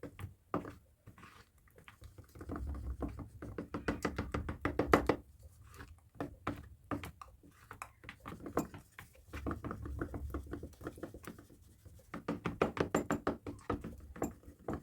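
A wooden spoon beating pancake batter in a bowl, knocking against the bowl's side in quick runs of taps, with wet stirring between them. The eggs are being worked into the flour paste until the batter is smooth.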